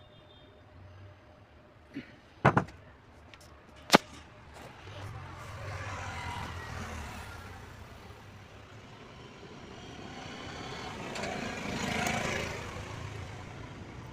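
Four sharp metallic clicks as a small U-lock clip is pressed onto the oil pump's governor wheel shaft of a Bajaj three-wheeler engine. Then passing road traffic rises and fades twice, loudest near the end.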